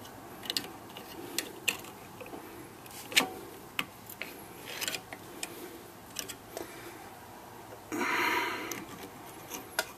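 Scattered light clicks and taps of brake hardware being worked into the caliper bracket, with a short burst of scraping noise about eight seconds in.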